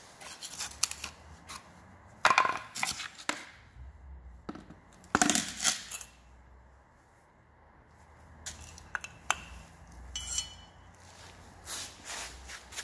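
Small metal and plastic scooter parts clinking and knocking as they are handled, picked up and set down on a hard tiled floor, in scattered sharp clatters with the loudest about two and five seconds in.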